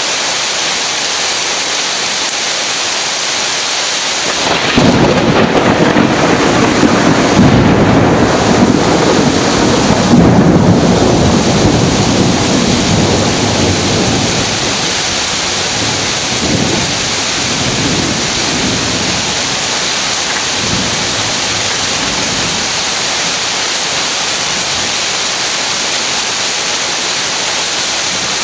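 Heavy rain pouring steadily. About four seconds in, thunder breaks out into a loud rolling rumble that peaks twice, fades over the next ten seconds or so, and ends in a few weaker grumbles.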